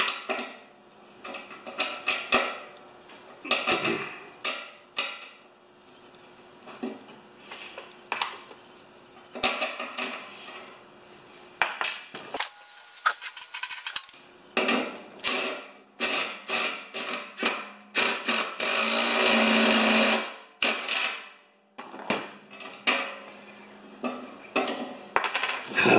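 Metal clinks and knocks of a bolt and steel bearing flange being fitted by hand on a snowblower's auger housing. About three quarters of the way through, a cordless drill-driver runs steadily for about two seconds, tightening the bolt.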